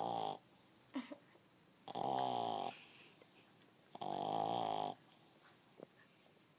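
French bulldog puppy snoring in her sleep: the tail of one snore at the start, then two full snores, each under a second long, about two seconds apart.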